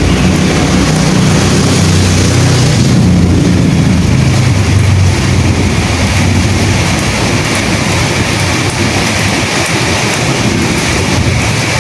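Steady, loud rain hiss. A deep low rumble runs under it through the first half and dies away about five seconds in.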